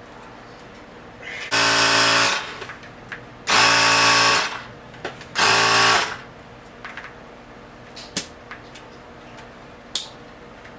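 Electrical tape being pulled off, three rasping rips of under a second each with a buzzy pitched edge, followed by a couple of small clicks.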